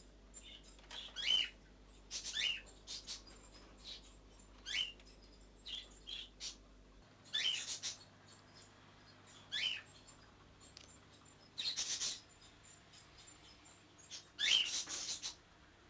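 Short, high squeaky calls from an unseen small animal, each sliding down in pitch, repeated irregularly every second or two.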